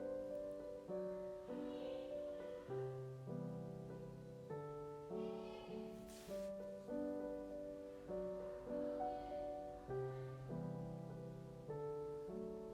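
Gentle background piano music, a simple melody of evenly paced notes over a repeating bass line.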